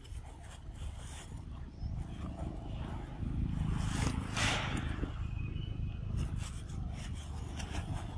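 Macaque biting and tearing at mango, with wet crunches and scraping clicks, over a low rumble that swells a few seconds in with a brief hiss.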